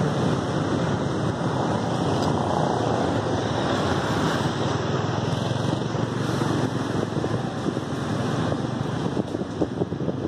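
Steady rushing noise of traffic on a flooded road, mixed with wind on the phone's microphone. Near the end it turns choppy, with irregular short knocks.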